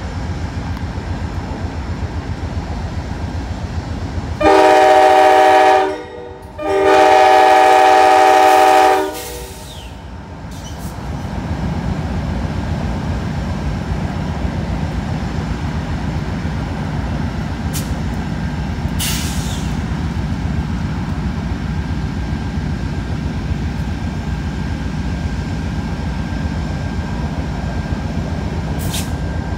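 Amtrak GE Genesis P42DC diesel locomotive idling, then sounding two long blasts on its multi-chime air horn, the second longer, the two-long signal a train gives as it releases brakes to proceed. A few seconds later its diesel engine throttles up into a louder, steady low rumble.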